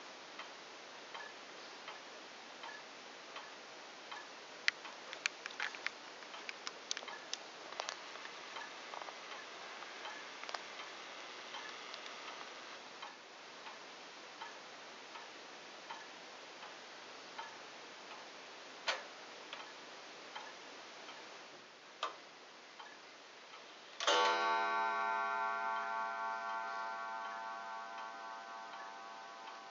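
Gustav Becker Vienna regulator wall clock ticking steadily, about once a second, with a few louder mechanical clicks from the movement. About 24 seconds in, its hammer strikes the coiled wire gong once for the half hour, and the gong rings on, slowly fading.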